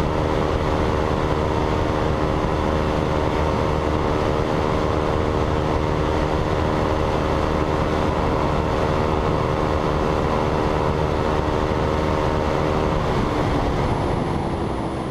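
Motorcycle engine running at a steady cruising speed under a heavy rush of wind noise; near the end its pitch drops and the sound fades as the bike slows.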